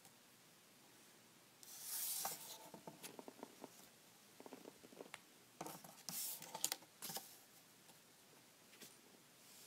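Paper cut-out screens being lifted off and laid onto a paper phone template: a rustle of paper about two seconds in, a run of light taps as fingers press on the paper, then another rustle with a few sharper taps around six to seven seconds in.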